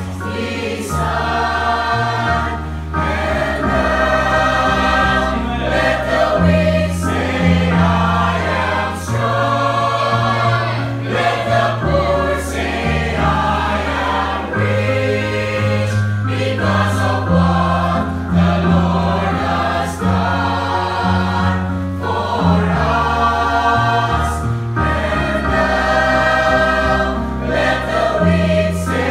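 Mixed choir of men and women singing a gospel hymn in parts, over sustained bass notes that shift every couple of seconds.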